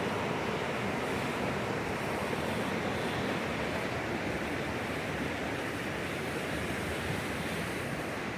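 Fast, rough water of a mountain stream rushing steadily.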